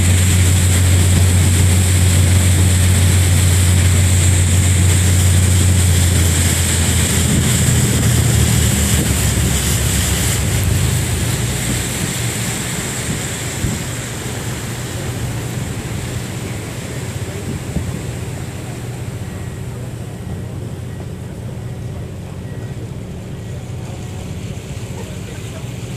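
Passenger ferry's engines droning with a steady low hum over wind and water noise. The hum is strongest for the first ten seconds or so, then fades, leaving a quieter hiss of wind and water.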